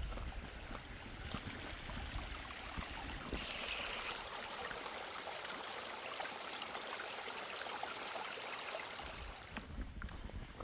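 Footsteps on a forest trail, then a small stream's running water rushing up as a steady hiss from about three seconds in, fading back to footsteps near the end.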